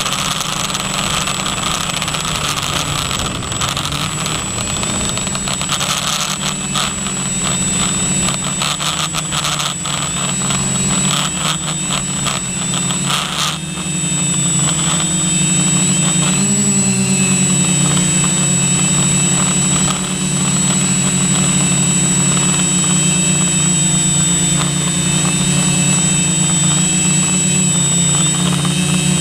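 Multirotor drone's motors and propellers running steadily, heard from the drone's own microphone, with a high steady whine over the propeller drone. The sound is rougher and noisier through the first half, then settles into an even hum from about halfway.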